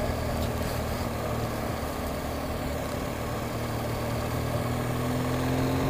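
BMW R1200GS motorcycle's flat-twin boxer engine running steadily while riding, with wind and road noise; its pitch rises a little near the end.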